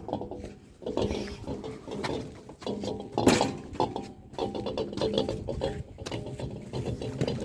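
A man grunting and breathing hard in repeated short strained groans as he carries a heavy refrigerator on his back.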